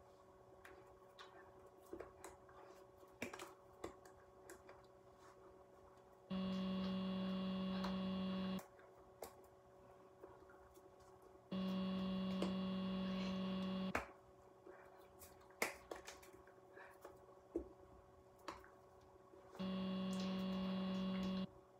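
A steady low hum switches on and cuts off sharply three times, each time lasting two to three seconds. In between are faint scattered clicks and taps from hands moving and touching.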